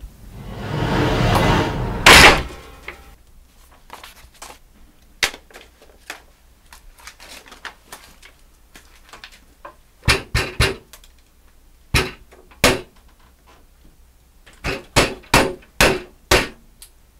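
A rising whoosh ends in a loud door slam about two seconds in, followed by scattered faint clicks and then clusters of hollow knocks and thuds: three in quick succession, two more, then a run of five near the end.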